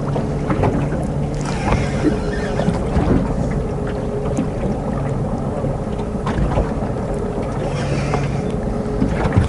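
Wind and water noise around a small boat at sea, with a low steady hum that fades in and out a few times and a few faint clicks.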